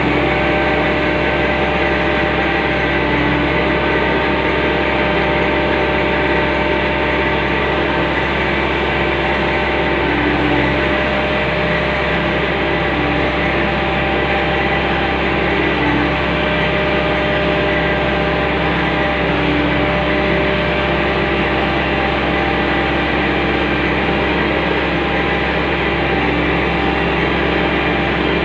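Walking excavator's diesel engine running steadily at a constant speed while its hydraulics hold the machine raised on its boom and wheeled legs.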